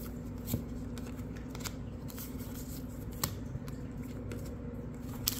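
2022 Bowman baseball cards being flicked through by hand, one moved behind another: soft card-on-card sliding with a few sharp little clicks. A louder rustle starts near the end.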